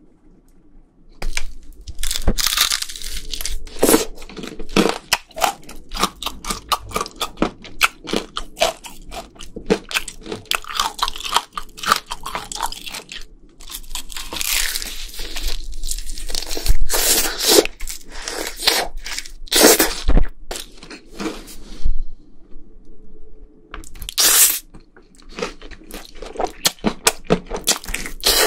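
Loud, close-miked crunching and chewing of a crisp, seasoned fried chicken drumstick (BHC Bburinkle chicken), the coated skin crackling sharply with each bite. It starts about a second in, with a couple of short pauses between bites.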